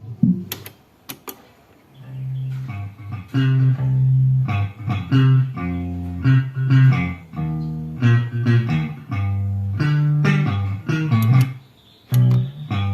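Instrumental music: a bass guitar playing a line of separate low notes under plucked guitar notes. A few sharp clicks come before the music enters about two seconds in.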